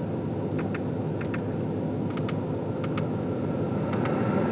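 Physical climate-control buttons on an Audi A3's dashboard clicking, about five quick double clicks, each a press and release, over a steady low cabin hum from the car.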